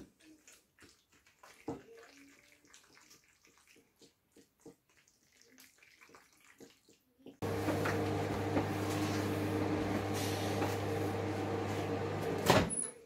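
Faint clicks and scrapes of a fork stirring a plastic ready-meal tray, then a microwave oven starts about seven seconds in and runs with a steady hum while heating the meal. The hum cuts off with a loud click about half a second before the end.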